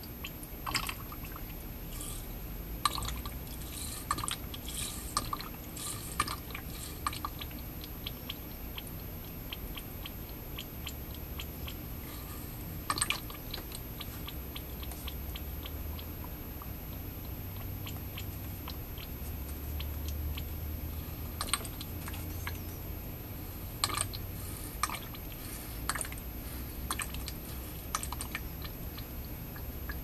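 Liquid condensate drain-line cleaner draining from an inverted plastic bottle into a PVC condensate drain pipe: irregular gurgles, drips and small crackles as the bottle empties.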